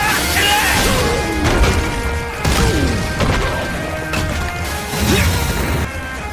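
Cartoon fight sound effects: several sudden smashing, crashing hits over dramatic background music.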